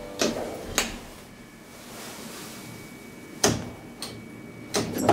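Sharp clicks and clunks from the car-panel push buttons of a DEVE hydraulic elevator, the emergency stop among them, being pressed: two in the first second, then more from about three and a half seconds on. A faint steady hum runs underneath.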